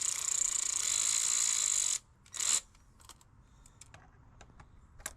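Quarter-inch drive socket ratchet clicking rapidly for about two seconds, then cutting off suddenly. A brief second run follows about half a second later, then a few faint clicks and taps.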